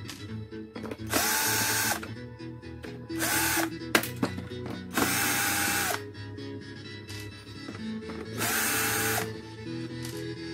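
Cordless screwdriver backing screws out of the plastic face of an LED par light, in four short runs of about a second or less. Each run has a motor whine that rises, holds and then falls away.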